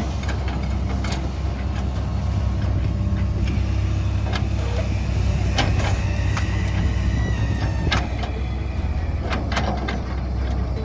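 Komatsu PC200 hydraulic excavator's diesel engine running steadily under load while its bucket digs wet sand, with about five short knocks from the bucket and arm.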